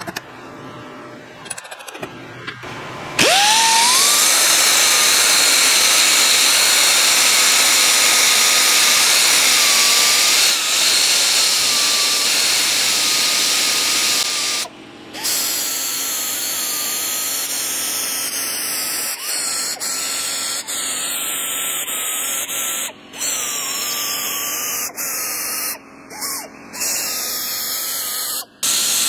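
Handheld power tool spinning up about three seconds in, then running steadily with a high whine that wavers a little under load, as the vise jaws are polished. It stops briefly and restarts a few times in the second half.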